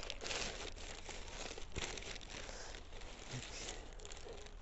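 Packaging crinkling and rustling as it is handled, with irregular small crackles while the box contents are taken out.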